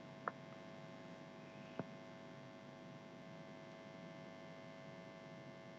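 Near silence with a faint, steady electrical hum, broken by two faint short clicks, one about a third of a second in and one near the two-second mark.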